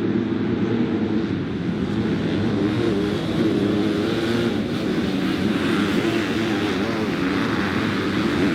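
Off-road racing engines running and revving, their pitch wavering up and down.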